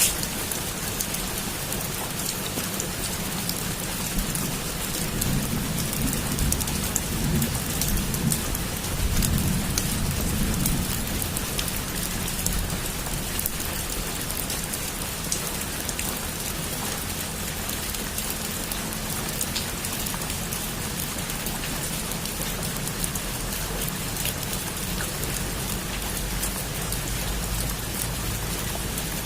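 Heavy rain falling steadily on a roof, with many sharp drop ticks. A low rumble of thunder swells from about five to eleven seconds in.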